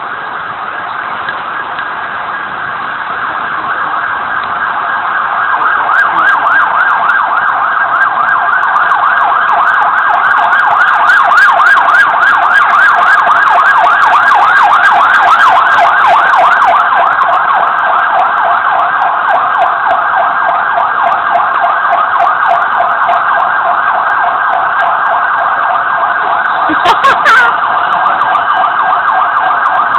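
Emergency vehicle siren sounding a fast up-and-down yelp. It grows louder over the first several seconds and then stays loud, with a couple of sharp knocks near the end.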